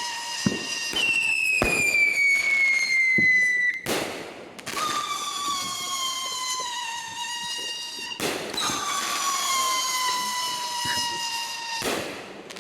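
Whistling fireworks screeching: three long whistles follow one another, each lasting a few seconds and sliding slowly down in pitch. Short sharp bangs and bursts of noise come between them.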